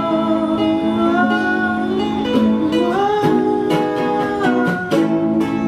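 Music: a song with strummed acoustic guitar under a held melody line that glides slowly from note to note, in a passage between sung lines.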